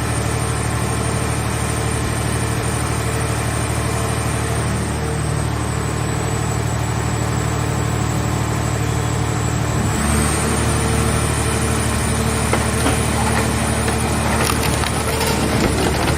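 Hydraulic scrap-car baler running with a steady hum and a high whine. About ten seconds in its note shifts as it takes up load, and then crackling and crunching begin as the scrap metal is crushed.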